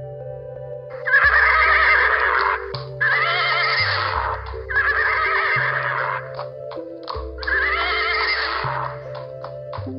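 Horse neighing four times, each whinny about a second and a half long, over soft background music, with a few short sharp clicks between the calls.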